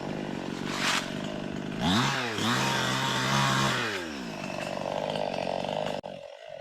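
Chainsaw engine idling, then revving up about two seconds in, holding high briefly and dropping back to idle, before stopping abruptly near the end.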